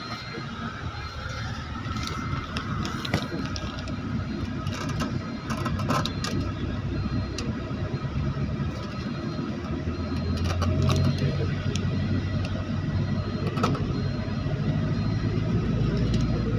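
Street traffic: vehicle engines running, with a deeper engine hum growing louder from about ten seconds in, and scattered clicks and knocks.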